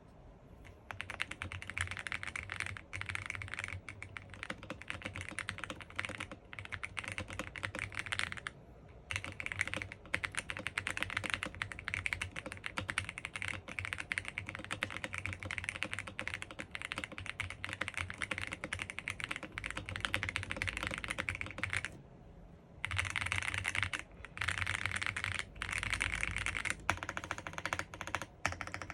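Fast typing on a Dareu A98 Master mechanical keyboard with Kailh Master linear switches and PBT keycaps, set to its softest gasket mounting: a dense run of key strokes, stopping briefly twice.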